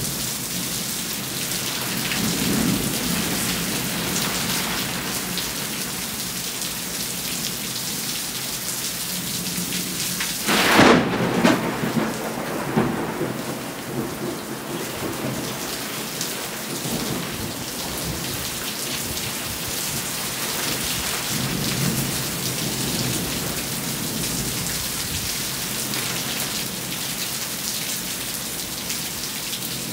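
Thunderstorm: steady rain falling, with a sharp thunderclap about a third of the way in that trails off into rumbling, and lower rolls of thunder near the start and about two-thirds through.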